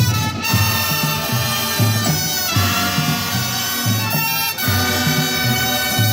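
Marching brass band playing: held brass chords over a bass line that pulses about twice a second.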